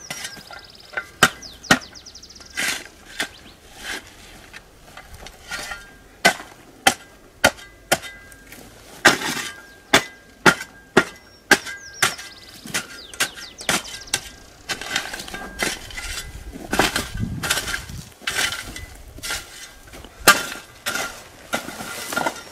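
Metal shovel blade chopping and striking into dry, clumpy earth, breaking up clods and packing soil around a newly planted maguey. Irregular sharp knocks, about one or two a second, with scraping of soil between them.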